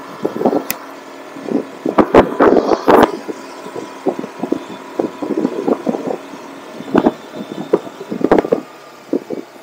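Wind buffeting the microphone of a camera worn by a motorcycle rider, in irregular flapping gusts that are loudest about two to three seconds in and again near the end. The motorcycle's engine runs steadily underneath while cruising.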